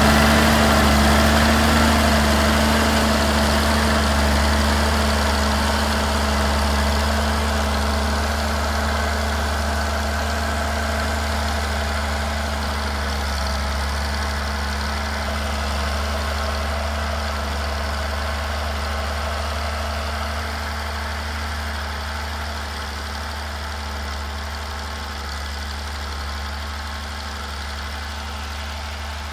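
Galion 118B motor grader's engine running at a steady speed as the grader works its blade along a dirt pile, fading steadily as the machine moves away.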